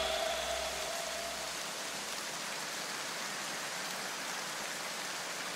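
Steady hiss of rain, a rain sound effect, with the last notes of electronic music dying away in the first second or so.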